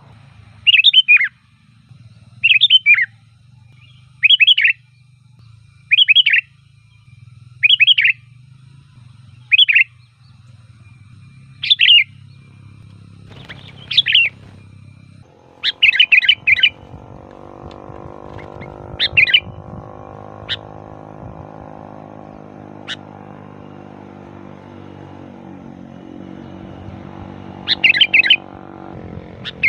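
Sooty-headed bulbul (kutilang) singing short, loud, bubbling phrases over and over, roughly every two seconds at first, then in scattered clusters. A steady low hum comes in about halfway and runs beneath the song.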